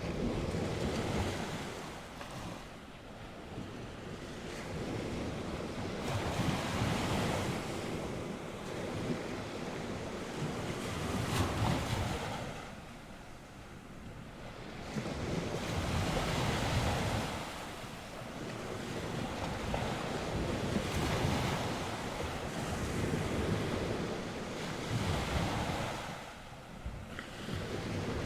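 North Sea waves breaking and washing ashore, the surf swelling and falling back every few seconds, with wind rumbling on the microphone.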